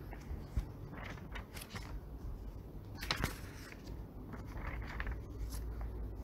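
Faint room noise with a low hum and scattered small clicks and rustles, the clearest about three seconds in.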